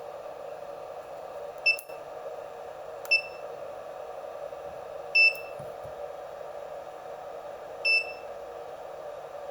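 HobbyKing Reaktor charger's buzzer giving four short, high single beeps a second or more apart, the beeps a charger gives as its keypad buttons are pressed, here on a newly fitted membrane keypad. A steady hum runs underneath, and the first beep comes with a click.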